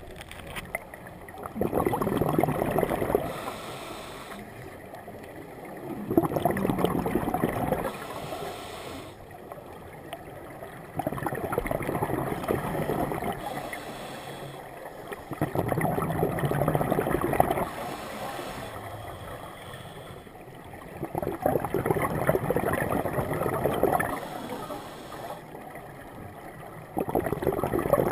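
Scuba diver breathing through a regulator underwater: a loud bubbling of exhaled air lasting two to three seconds, about every four to five seconds, with a fainter hiss of inhalation in between.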